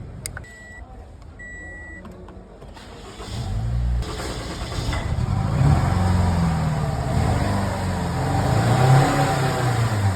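Two short electronic beeps, then the 2013 Toyota Harrier's engine starts about three seconds in and runs, its pitch wavering up and down.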